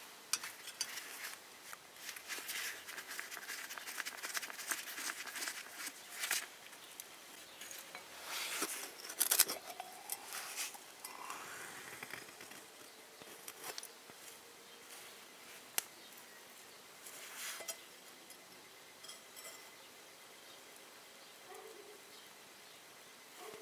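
Light metal clicks and scrapes from an old foot pump being taken apart by hand: pliers working a pin out of the linkage, then the piston and rod drawn out of the steel cylinder. One sharp click stands out about two-thirds of the way through.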